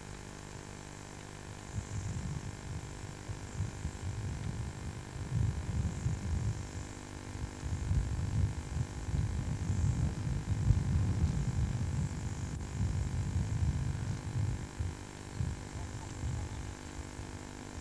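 Wind buffeting a camcorder microphone: an uneven low rumble that comes in gusts and is strongest in the middle, over a faint steady hum.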